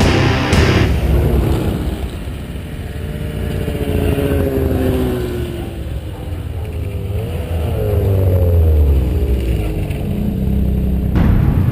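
Two-stroke snowmobiles approaching at trail speed: engine pitch sinks as the throttle eases, then rises and wavers as the lead sled comes close, its engine growing louder toward the end. Background music plays over the first second and returns just before the end.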